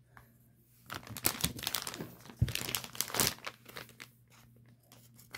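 Clear plastic packaging bag crinkling and rustling as it is cut and pulled open, starting about a second in with a dense run of crackles and a few sharper snaps, then lighter rustling.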